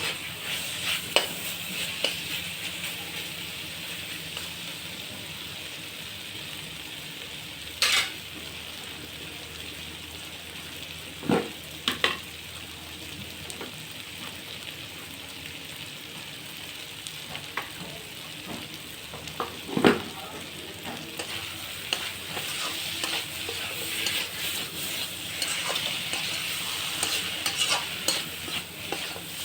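Chicken curry frying and sizzling in hot oil in a pan while a spatula stirs it. A few sharp knocks of the spatula against the pan come about eight, eleven, twelve and twenty seconds in, and the sizzle grows louder near the end.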